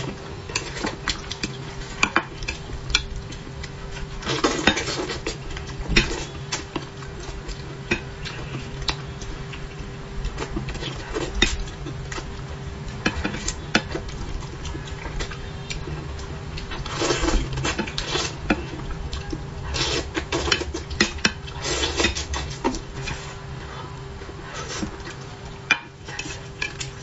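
Chopsticks clicking and scraping against a ceramic bowl and serving dish of braised fish, with eating noises in between, over a faint steady hum.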